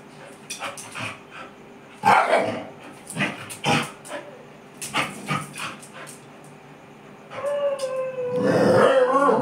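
A dog barking in a series of short, sharp barks, then breaking into a long, drawn-out howl near the end.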